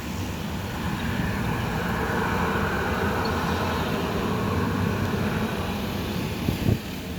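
Steady rumble of a Lion Air jet airliner landing, swelling in the middle and easing off again, with a short knock near the end.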